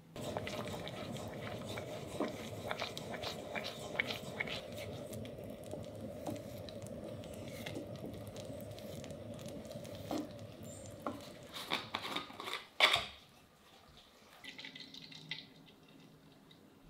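Butter and starchy pasta water bubbling in a stainless steel pot while a wooden spatula stirs it, with many small clicks and splashes. A single sharp knock just before the end of the stirring, then a much quieter stretch with faint liquid sounds as milk is poured into a plastic measuring jug.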